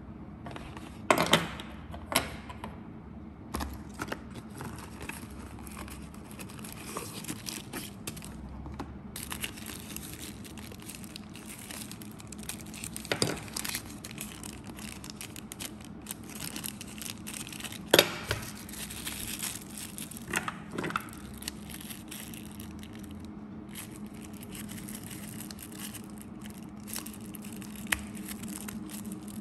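Hands unwrapping and handling a small action camera and its plastic mounts: the crinkle and tearing of paper and plastic wrapping, with several sharp clicks of hard plastic parts spread through, over a steady low hum.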